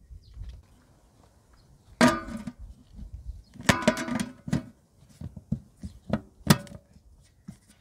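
Aluminium pot lid clanging onto the cooking pot about two seconds in and ringing briefly, with more metallic clanks and ringing as it is settled a moment later, then a few shorter metal knocks.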